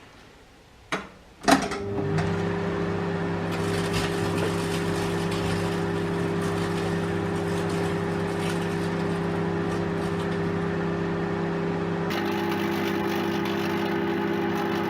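Microwave oven started with two sharp clicks, then running with a steady hum. Faint crackles come through here and there, and the hum changes tone about twelve seconds in.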